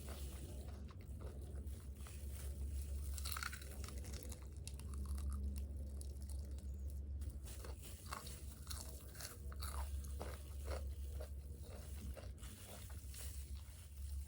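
Close-miked chewing and biting of crispy fried chicken and fries, with many irregular crunches, over a steady low hum.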